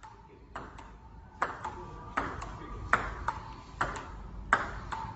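Table tennis ball clicking off the table and the paddles in a steady back-and-forth rally. The sharp pings come in pairs, roughly one pair every three-quarters of a second, starting about half a second in.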